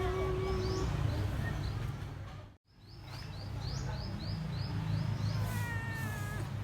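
Outdoor ambience: short high chirps repeating a few times a second over a steady low hum. The sound drops out for an instant near the middle.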